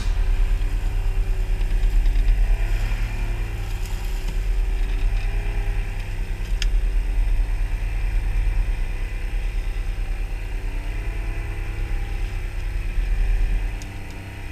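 Fishing boat's engine running steadily at low speed, a low rumble whose pitch wavers slightly.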